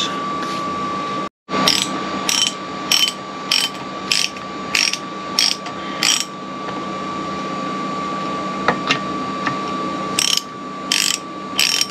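Socket ratchet wrench clicking as it undoes the water pump housing bolts on an outboard gearcase: a short ratcheting burst on each back-swing, about every half second for several strokes, then a pause and three more bursts near the end.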